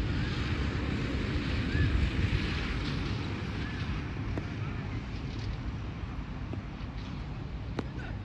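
Wind buffeting the microphone, a steady low rumbling noise, with faint distant voices now and then.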